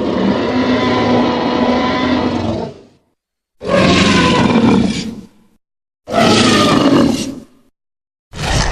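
Synthetic Tyrannosaurus rex roars, sound effects built from film dinosaur roars: three separate roars cut apart by dead silence. The first is the longest, about three seconds; the next two are shorter and trail off, and a fourth begins near the end.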